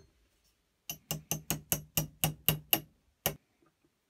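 A quick, even run of nine sharp metallic clicks, about four or five a second, then one more after a short pause. Each click rings briefly, as from steel vise parts being handled.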